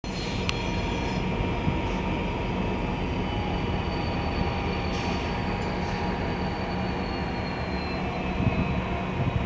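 EMD SD60 diesel-electric locomotive running steadily, a low diesel drone with a thin high whine that drifts slowly in pitch, as it moves slowly in reverse. A single click sounds about half a second in.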